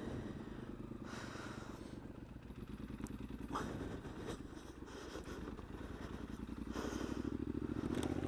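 Triumph Scrambler's parallel-twin motorcycle engine running at low revs over a rough dirt track, picking up a little near the end, with a brief knock about three and a half seconds in.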